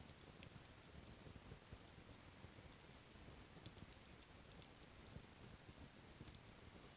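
Faint crackling of a softwood campfire burned down toward a bed of embers: scattered small pops and ticks at irregular moments.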